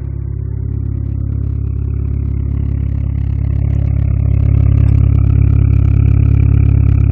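Exhaust of a 1996 Mitsubishi Eclipse with the engine running at a steady idle. It grows louder over the first few seconds, then holds steady.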